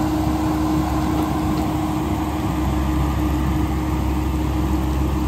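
Diesel engine of a Caterpillar hydraulic excavator running steadily while it digs: a constant low rumble with a steady hum over it.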